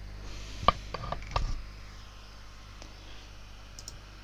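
A few sharp clicks in quick succession about a second in, the first the loudest, like computer mouse and keyboard clicks at a desk. After them only a steady low electrical hum with faint hiss.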